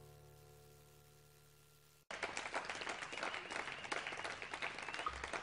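The last sustained chord of a song fading away; about two seconds in it cuts off and a new track starts abruptly with a crowd applauding. A low bass beat comes in near the end.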